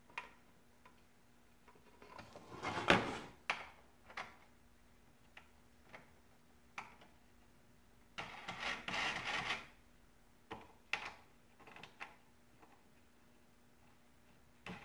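Wooden jig pieces being handled and fitted together on a workbench: scattered light knocks and clicks, a sharp knock about three seconds in, and a longer scraping rub of wood on wood a little past the middle.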